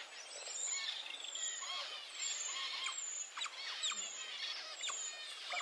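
A group of Asian small-clawed otters calling together: a dense chorus of high-pitched chirps and squeaks, many short rising and falling calls overlapping.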